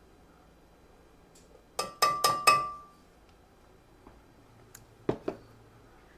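Cookware clinking: four quick ringing taps in a row, then two duller knocks a few seconds later, as flour is measured into the pan for a roux.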